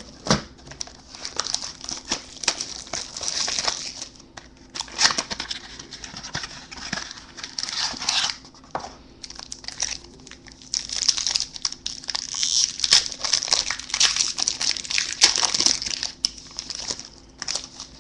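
Trading-card pack wrapper being torn open and crinkled by hand, in several spells of crackling with short pauses.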